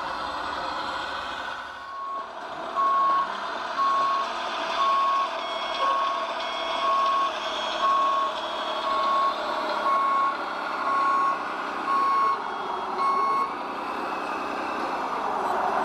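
A model truck's sound module sounding a reversing alarm, one beep about once a second, over its steady engine sound. The beeping starts about three seconds in and stops near the end.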